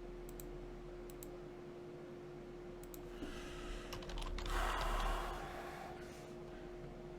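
Computer keys clicking a few times, then a cluster of clicks, followed by a short breathy rush of noise lasting about a second, over a steady electrical hum.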